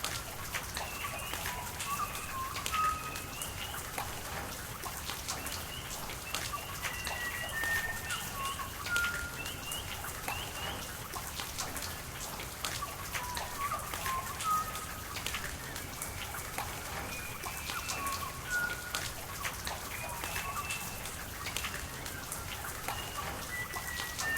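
Rain falling, with many sharp drips and patter over a steady hiss of water, while birds call throughout in short whistled notes.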